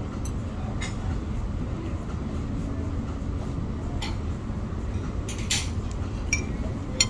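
Restaurant background: a steady low hum of room noise with a few short, sharp clinks of tableware on the table, the loudest just before the end.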